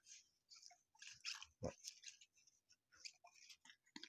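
Faint, irregular rustling and soft scraping of baseball trading cards being handled and flipped through, card stock sliding against card stock.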